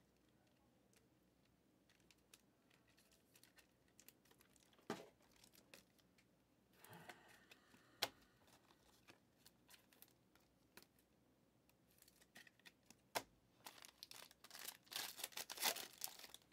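Quiet handling with scattered light clicks, then near the end the foil wrapper of a trading-card pack being torn open, crinkling and crackling for about two seconds.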